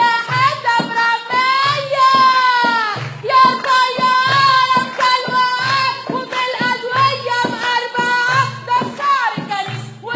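A song: singing over music with a low bass note about once a second.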